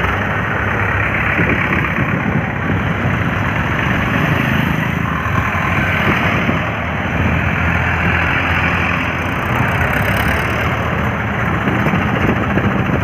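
Several diesel farm tractors running steadily as they drive past in a line, their engines overlapping in a continuous drone.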